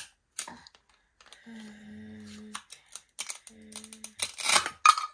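Sharp clicks and taps of small hard objects being handled, with a low steady hum held twice in the middle and a brief rasping scrape near the end, the loudest part.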